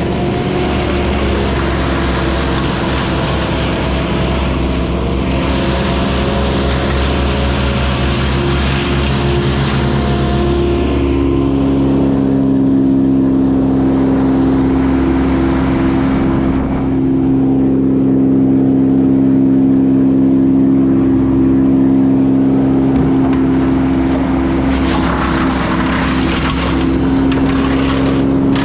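A large engine running steadily under load, its pitch shifting to a new steady note about eleven seconds in. A crackling, rustling noise rises over it near the end.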